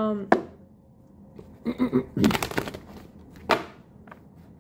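Tarot cards being handled: a sharp tap just after the start, a rustling swish about two and a half seconds in and another sharp tap, with a short low voice sound just before the swish.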